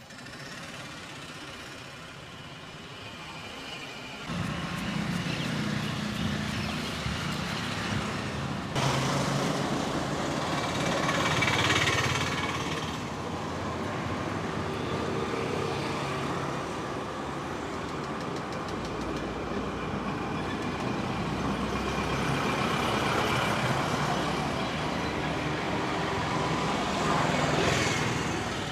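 Street traffic, with a heavy vehicle's engine running close by. It gets louder about four seconds in, and louder rushes of noise come and go over it.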